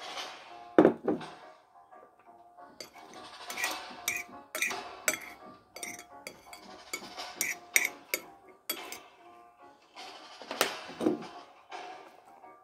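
Kitchen utensils clinking and clattering against dishes in irregular strokes, over background music.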